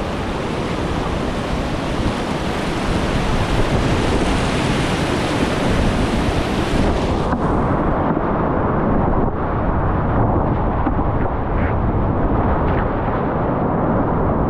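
Whitewater rapids rushing and crashing around a kayak running a steep drop, a loud, steady hiss of water. About halfway through the sound turns muffled and duller, its sharp hiss cut away.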